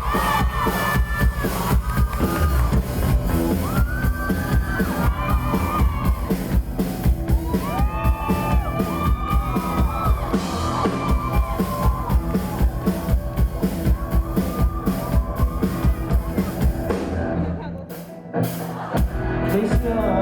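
Live rock band playing an instrumental passage on drum kit, electric guitar and bass, with audience whoops and shouts. The band drops out briefly near the end, then the drums come back in.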